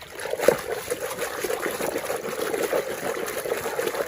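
Water trickling and splashing steadily as a muddy toy vehicle is rinsed clean by hand.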